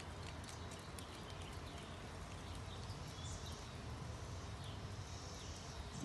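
Faint outdoor background: a steady low rumble with scattered light ticks and a few short high chirps in the middle.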